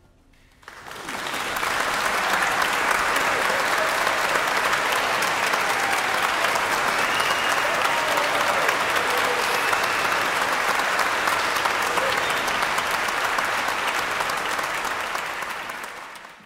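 Audience applauding: the clapping breaks out about a second in, holds steady, and fades out near the end.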